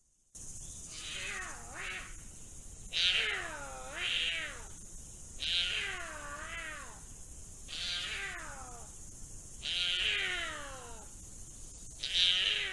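Puma calling: a series of about seven meow-like calls, each sliding down in pitch, coming one every second or two.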